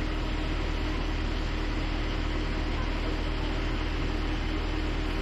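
Hydraulic excavator's diesel engine running steadily, a constant low drone that holds an even pitch.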